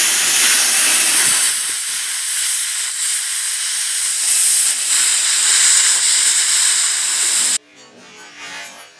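Cut40 plasma cutter's torch arc hissing steadily as it cuts through steel plate, cutting off abruptly about seven and a half seconds in.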